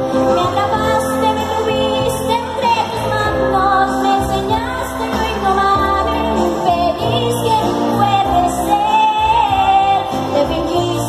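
A young woman singing a melody into a handheld microphone, amplified over the PA, with instrumental accompaniment carrying a steady bass line beneath her voice. She holds and bends long notes.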